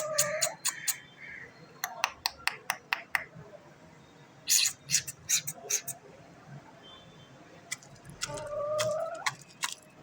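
A chicken's drawn-out call, briefly at the start and again for about a second and a half near the end, with many sharp clicks and taps in between.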